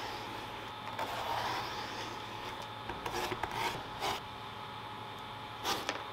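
Craft knife drawn through thick leather along a steel ruler: one long slicing scrape about a second in, then a quick run of short scraping cuts, and a sharper clack near the end.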